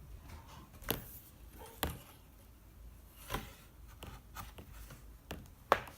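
Pages of a thick board book being turned and handled, giving a few soft separate taps and knocks.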